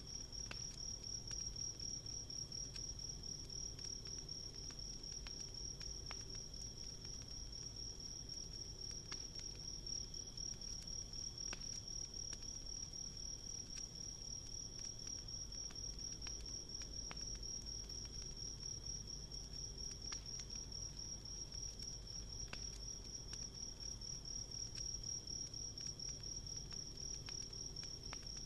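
Insects trilling in a steady, high, unbroken chorus, with the scattered small pops and crackles of a wood campfire under it.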